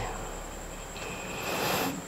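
One breath drawn in through the nose from a closed hand held to the face: a breathy hiss, nearly a second long, about a second in.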